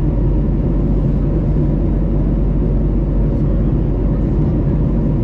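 Steady engine and airflow noise inside the cabin of an Airbus A321neo climbing after takeoff, from its Pratt & Whitney PW1100G geared turbofans in climb thrust.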